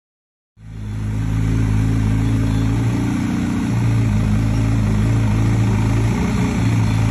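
Endurance superbike engine idling steadily, cutting in suddenly about half a second in.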